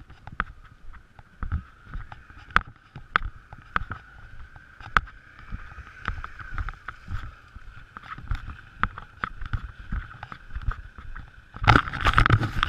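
Dirt bike ridden slowly over a rutted dirt track: a steady hum with many irregular knocks and rattles from the bumps. It gets louder and busier about a second before the end.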